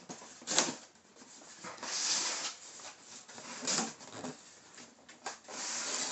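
Packing tape on a cardboard shipping box being slit open with a small blade: a few rasping, tearing strokes, with longer ones about two seconds in and near the end.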